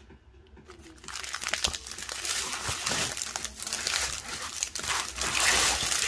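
Clear plastic zip-lock bags of diamond-painting drills crinkling and rustling as the strip of bags is handled and spread out, starting about a second in.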